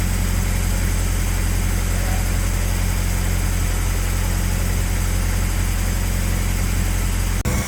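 Car engine idling steadily, just started after a water pump replacement. The sound drops abruptly in level near the end.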